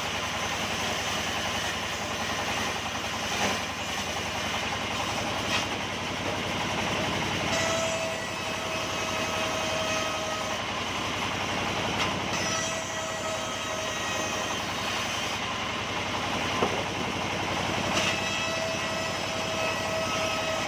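Sawmill machinery running steadily while sawing beams. A high-pitched whine comes and goes three times, each lasting a couple of seconds, with a few sharp knocks in between.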